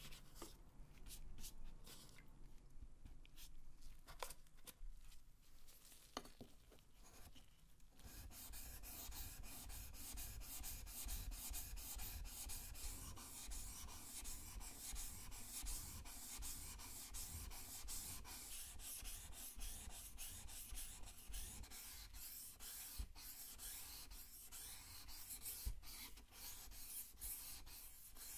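Steel knife blade being sharpened on a wet whetstone: a few scattered knocks and scrapes, then from about eight seconds in a fast, steady run of back-and-forth grinding strokes of the blade across the stone.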